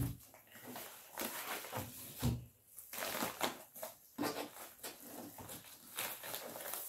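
Rustling and crinkling of a FedEx shipping envelope being handled and pulled open by hand, in irregular bursts.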